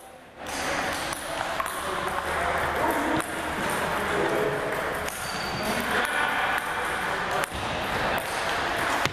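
Scattered sharp clicks of table tennis balls bouncing off tables and paddles in a large gym, over indistinct background chatter.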